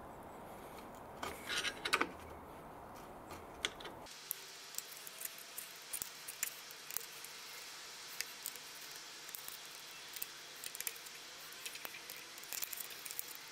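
Heat gun blowing steadily, with a few sharp clicks under it, then cutting off suddenly about four seconds in. After that, a run of small clicks and scrapes as a screwdriver pries and scrapes heat-softened glue and old speaker remains off a plastic speaker mount.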